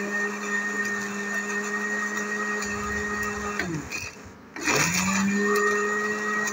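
Small electric grinder with a glass jar running steadily as it grinds coconut oil cake into powder. A little over halfway it is switched off and its pitch falls as the blade spins down. After about a second's pause it is switched on again, and the pitch rises as it spins back up to speed.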